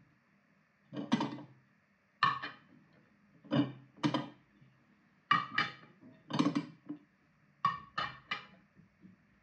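White ceramic plates set down and stacked onto one another, about a dozen sharp clinks of plate on plate, some coming in quick pairs and threes.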